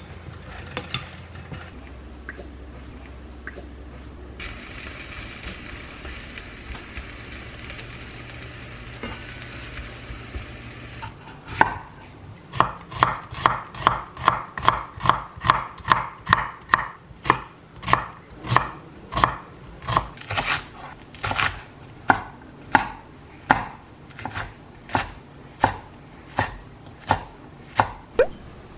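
Chef's knife chopping onion and green chili on a wooden cutting board, in steady strokes about two a second that start a little before halfway. The first part holds a few light clicks and then a steady hiss-like rustle.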